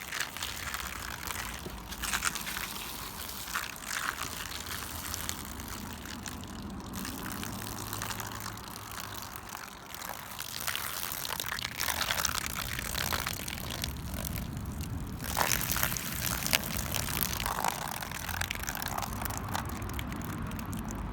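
Dried peas being poured onto and into a computer keyboard, a dense continuous stream of small clicks and rattles as they hit and scatter over the keys.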